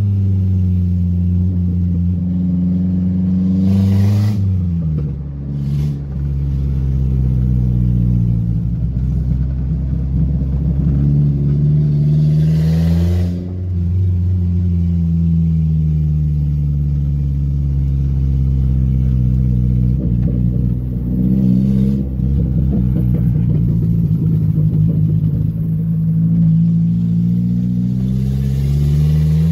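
Toyota Corona's engine pulling under load while being driven. Its pitch holds, rises and then drops sharply at gear changes about four seconds in, about thirteen seconds in, and at the very end.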